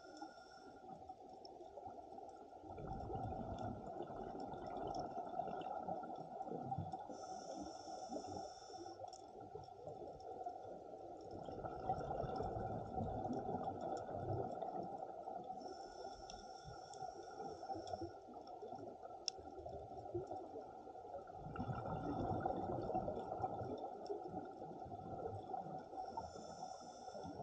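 Scuba diver breathing underwater through a regulator in a slow cycle, about every nine seconds. Each breath is a short whistling hiss on the inhale, followed by a longer rumble of exhaled bubbles.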